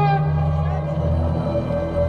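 Music with long held, drone-like tones over a low pulsing bass. A held higher note fades out just after it begins.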